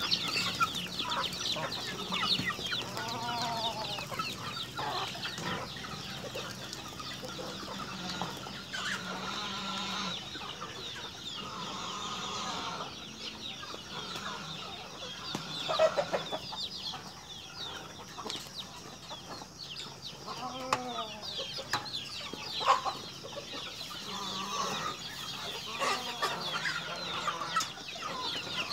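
A flock of chickens clucking and calling, many birds at once, over busy high-pitched chirping.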